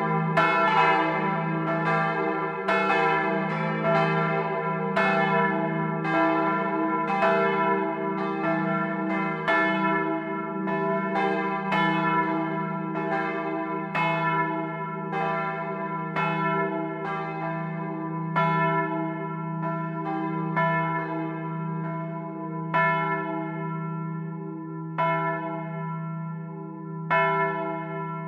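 Bronze church bells, cast in 1951 by the Otto foundry, ringing in the tower, heard close up among the bells, with a steady low hum under the strikes. The strikes come thick and fast at first, then grow sparser and weaker in the second half, about one every two seconds near the end, as the bells swing down toward rest.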